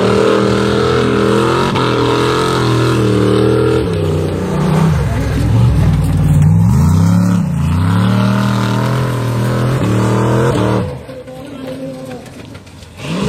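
A car engine revving hard on a timed run. Its pitch repeatedly climbs and falls with the throttle, then drops away sharply nearly 11 seconds in.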